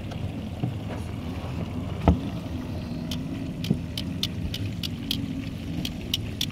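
Fish frying in hot oil in a skillet on a portable gas stove, crackling with sharp pops about two or three times a second from about three seconds in, over a steady low rumble. A single loud knock about two seconds in.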